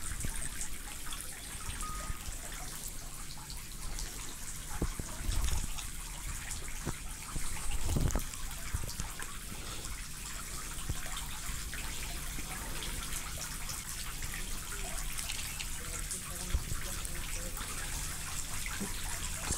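Steady noise like trickling water, with a few dull thumps, the largest about eight seconds in.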